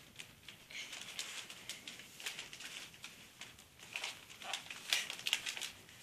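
Wrapping paper and gift packages rustling and crinkling in irregular bursts as the presents are handled and moved about.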